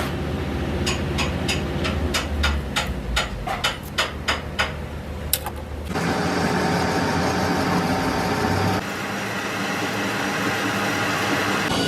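A run of about a dozen sharp knocks, two to three a second. About halfway through it changes abruptly to a steady machine running in a metalworking shop, and that sound shifts once near the end.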